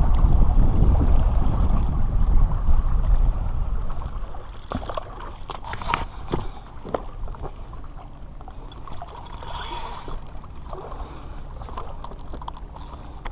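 Heavy wind noise on a small action-camera microphone for the first few seconds, then, after a cut, quieter water lapping at the shore with scattered clicks and knocks from handling the fishing gear.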